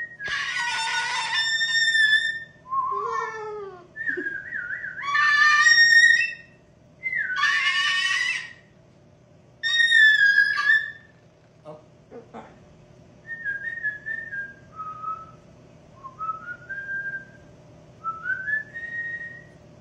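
A man and a cockatoo trading whistles: clear whistled notes with sliding pitch, broken twice by loud, harsh cockatoo screeches. In the second half come softer whistles that fall and then rise in short glides.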